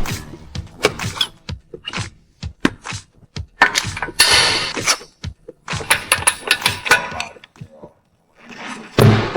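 Metal tools and car parts being handled in a workshop: a series of sharp clinks, clicks and knocks, with a few longer noisy stretches in between. A louder sound with a steady pitch starts near the end.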